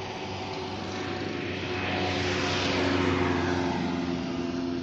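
Motor vehicle engine running on a road with tyre and road noise, swelling to its loudest about three seconds in and then easing off.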